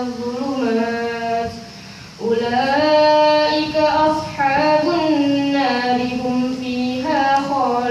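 A boy reciting the Quran from memory in a melodic chant, his high voice holding long, drawn-out notes that glide up and down. He breaks off briefly about two seconds in, then goes on.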